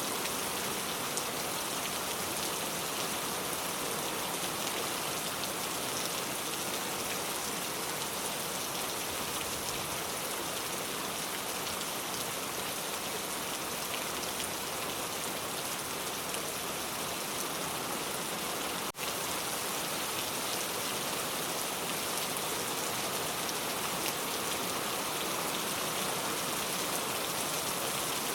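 Steady rain falling, an even hiss of many drops, with a momentary dropout in level about two-thirds of the way through.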